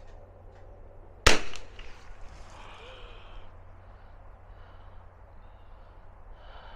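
A single .22 rimfire shot from a Stevens Little Krag Model 65 single-shot rifle about a second in: one sharp crack with a brief echo trailing off.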